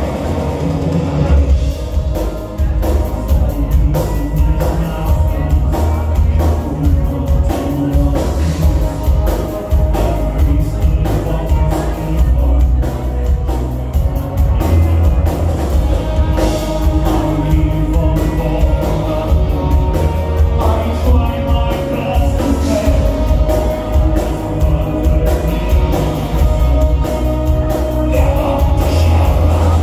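Melodic death metal band playing live and loud: distorted guitars, bass and a drum kit in a dense, fast beat, with vocals over them.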